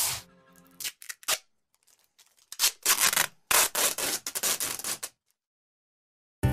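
Short rubbing and scraping noises: a burst at the start, a few scattered ones about a second in, then a dense run of them lasting about two and a half seconds that stops suddenly.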